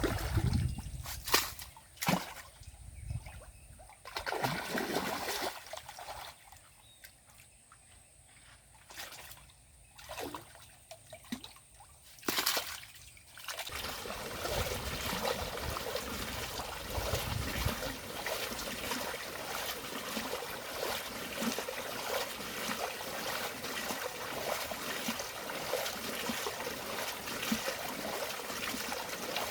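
Water splashing and sloshing in separate bursts, then a steady trickle of running water from about halfway through.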